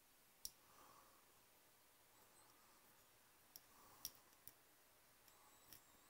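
Near silence broken by about five faint, sharp clicks, the clearest about half a second in and another about four seconds in: small hobby tools being picked up and set down on a workbench.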